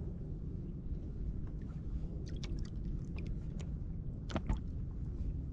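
Steady low rumble of wind and water around a kayak on open water, with scattered faint clicks and a couple of sharper ticks about four and a half seconds in.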